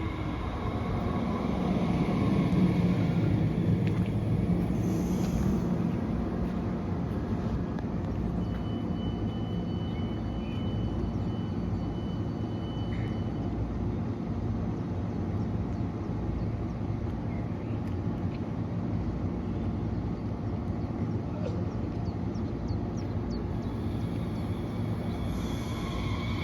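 Steady low rumble of a DB class 430 S-Bahn electric train, a little louder a few seconds in, with a faint thin high tone for a few seconds near the middle; the wheel squeal has stopped.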